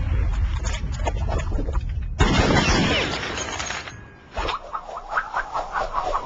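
Low rumble of an explosion dying away. About two seconds in it is cut off by a sudden loud rush that fades over the next second or two. Near the end comes a string of short sounds, a few each second.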